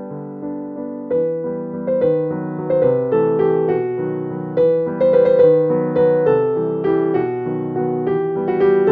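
Background piano music: a steady stream of notes, each struck and fading.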